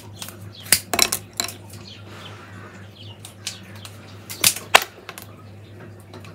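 Pruning secateurs snipping through the ends of willow rods on a wreath hoop: a run of sharp, irregular clicks and snaps, loudest about a second in and again about four and a half seconds in.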